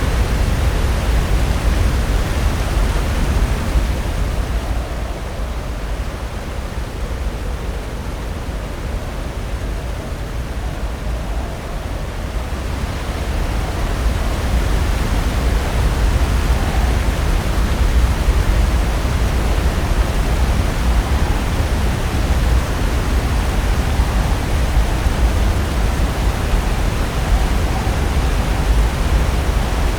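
Pacific Ocean surf breaking and washing ashore: a continuous rushing noise with a deep rumble, easing for several seconds after about five seconds in, then building again.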